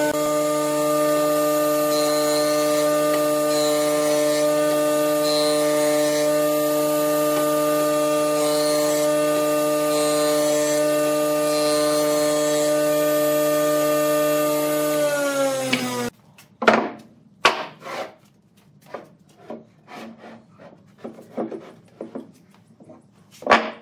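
Jointer running with a steady hum, its cutter head planing the edge of a round log slice, with a few brief hissing cuts; about fifteen seconds in it is switched off and winds down, falling in pitch and stopping. Then a series of wooden knocks as thick branch pieces are laid and shifted on a wooden table.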